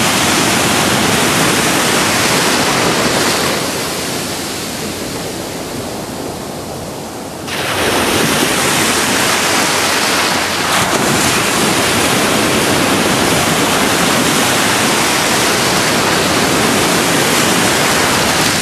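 Ocean surf with wind on the microphone: a loud, steady rush of noise. It grows quieter and duller from about three and a half seconds in, then comes back sharply at about seven and a half seconds.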